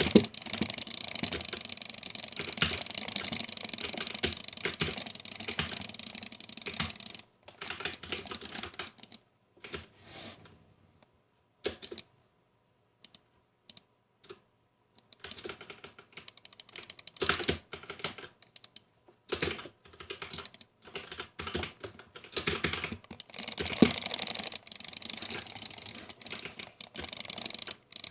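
Rapid, irregular clicking in dense runs. It thins out after about seven seconds, falls nearly silent for a few seconds around the middle, then picks up again until the end.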